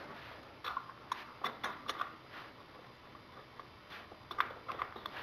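Light, scattered clicks and taps of small parts being handled and fitted back onto a motorcycle's V-twin engine by hand.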